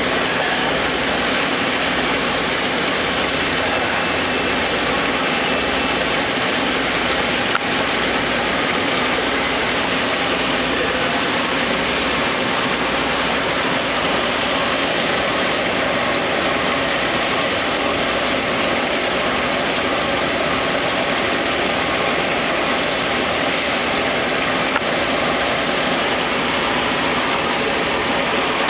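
Sinker EDM machine burning a part submerged in dielectric fluid: a steady, even hiss of spark erosion with a low hum pulsing about once a second beneath it.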